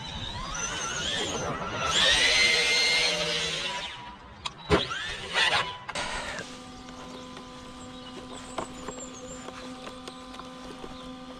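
ARRMA Big Rock 3S RC truck's brushless motor whining as it accelerates, rising in pitch and then held loud and high for about two seconds. Two sharp knocks follow midway as the truck lands and flips over, and after that a steady low hum continues.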